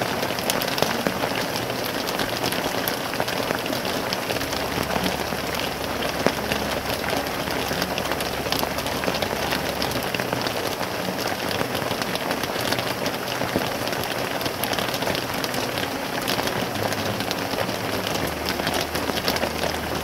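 Steady heavy rain, an even rushing noise with a dense patter of individual drops.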